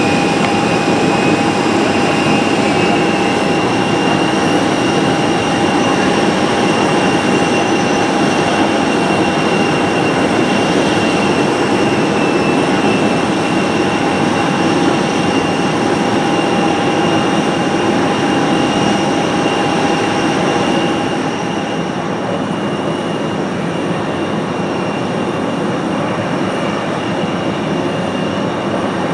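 Boeing 787-8's GEnx turbofan engines running at low power as the airliner taxies past: a steady rushing noise with high, steady whining tones. About two-thirds of the way through, the sound drops a little and the highest whine fades.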